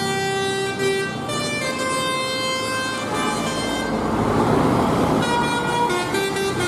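Telolet basuri bus horn playing a tune of held, flute-like notes that step from pitch to pitch. About halfway through a loud rushing noise swells over it for a couple of seconds, then the horn tune carries on.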